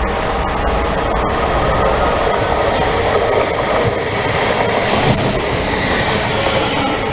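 A train running past close by on the rails: loud, steady wheel-and-rail noise with a faint whine in it, and a few sharp clicks in the first second and a half.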